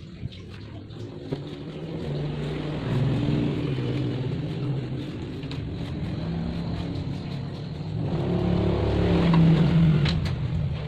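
A motor running with a low hum whose pitch shifts, growing louder about eight seconds in and peaking near the end.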